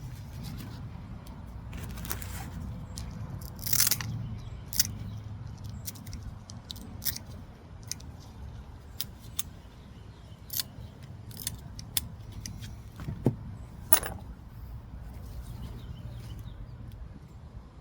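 Sharp, irregular clicks and clinks of broken china plate pieces, the loudest about four seconds in and near fourteen seconds, over a steady low rumble.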